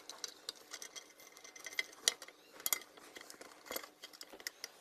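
Screwdriver turning out small screws from the plastic housing of an electric iron, with hands handling the iron: light scraping and irregular small metallic clicks and ticks.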